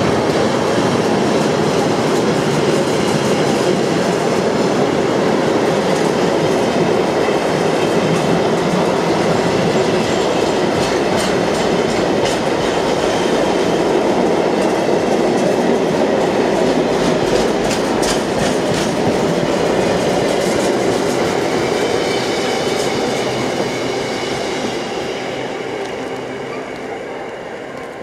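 Car-carrier wagons of a freight train running past, their wheels rumbling and clacking over rail joints. The sound fades away over the last few seconds as the end of the train moves off.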